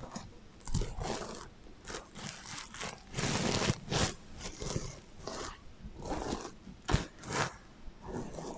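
Fingers scratching and brushing over the sequins of a heart-shaped sequin pillow, with an echo effect added: irregular rustling, scraping strokes, a longer one near the middle and several short, sharp ones.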